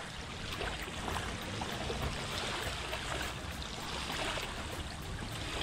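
Small waves washing and fizzing over wet sand at the water's edge, in a steady hiss.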